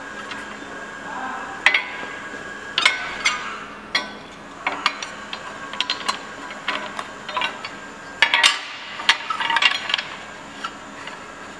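Light metallic clicks and taps of bent aluminum channel-letter profile strips being handled and set down on a worktable, coming irregularly with a busier run about eight seconds in, over a faint steady hum.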